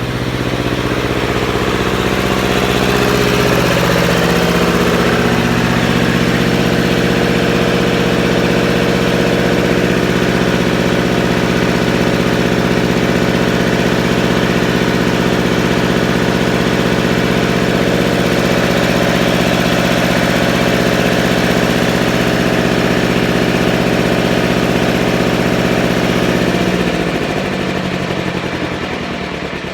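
Generator engine coming up to speed over the first few seconds, then running steadily. Near the end its revs drop and it gets quieter.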